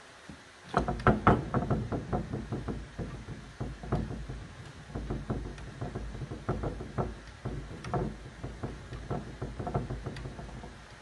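Paint being dabbed onto a wooden cupboard: an irregular run of soft knocks, several a second, starting about a second in.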